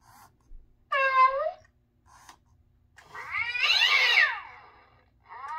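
Gemmy Fraidy Cat animatronic toy playing recorded cat sounds through its speaker: a short meow about a second in, then a longer yowl with many sliding, falling pitches from about three seconds in, and another yowl beginning at the end.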